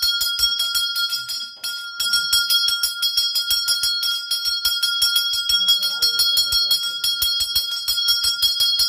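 Puja hand bell rung rapidly during an arati, several strikes a second, with a short break about a second and a half in. Faint voices come in during the second half.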